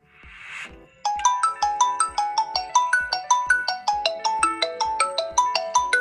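Smartphone ringtone. A short rising whoosh gives way, about a second in, to a fast melody of short bright notes over a steady beat.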